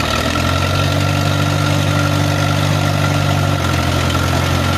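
Allis-Chalmers loader tractor's engine running steadily; its note steps up slightly just after the start and drops back about three and a half seconds in.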